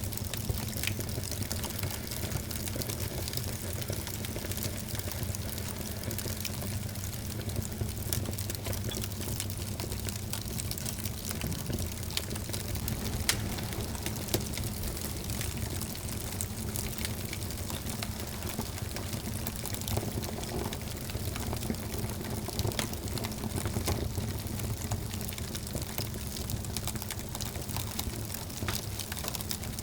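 Wood fire burning in a fireplace: a steady rush of flames with frequent small crackles and pops, one louder pop about 13 seconds in.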